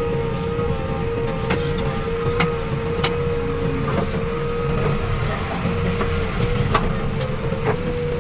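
Heavy diesel machinery running steadily under load, with a steady whine over the engine and a few sharp knocks scattered through.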